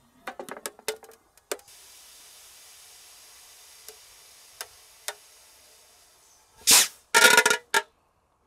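A Funke Geysir firework burning inside a closed steel ammunition box. A few sharp cracks are followed by a muffled steady hiss with three scattered pops, then near the end a loud bang and a rapid burst of crackling as smoke is forced out of the box.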